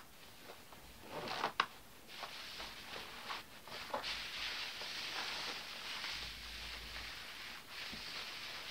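Shiny nylon down pants and jacket rustling as hands rub and handle the fabric: a few sharp swishes and clicks in the first couple of seconds, then steady swishing from about four seconds in.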